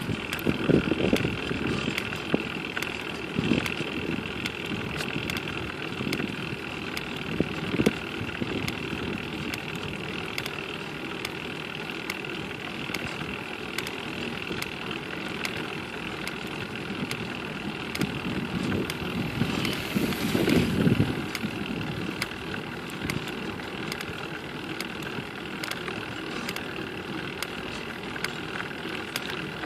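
Evenly repeated clicking that goes on steadily over a running motor hum with a faint whine. A few louder low rumbles come and go, the strongest about two-thirds of the way in.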